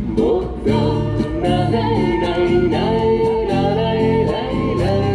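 A song playing: a singing voice holding long notes over instrumental backing with a steady bass.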